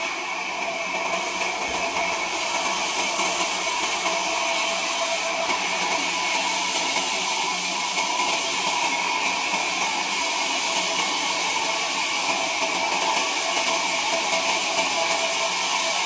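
Sawmill machinery running with a steady, unbroken mechanical whir.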